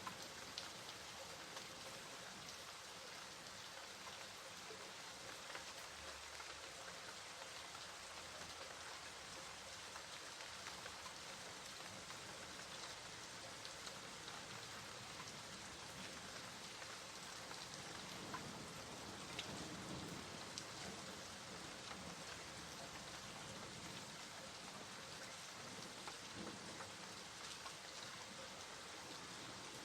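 Steady rain falling on a surface, an even hiss with scattered faint drop ticks and a slight swell about two-thirds of the way through.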